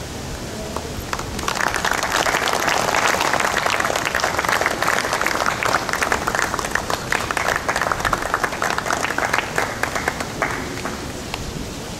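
Audience applauding. The applause starts about a second in and dies away at about ten seconds, over a steady background hiss.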